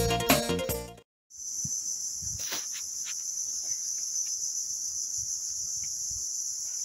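Plucked guitar music fades out in the first second; after a brief gap a steady, high-pitched insect chorus takes over. Faint crunching footsteps on gravel sound beneath it.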